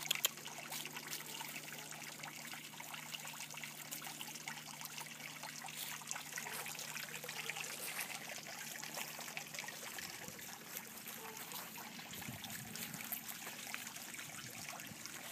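Soft, continuous rustling and crackling of dry leaves and grass as two basset hound puppies wrestle on the ground.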